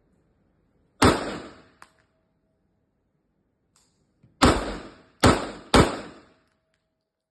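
Four gunshots on a shooting range: a single shot, then after a pause of about three seconds three more in quick succession, about half a second apart, each with a short echoing tail.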